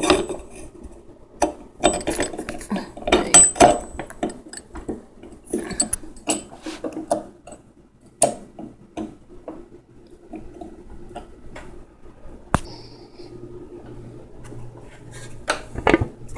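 Metal meat-grinder parts and dishes clinking and clattering as they are handled, busiest for the first eight seconds or so. After that come fewer, lighter knocks, with one sharp knock about twelve seconds in.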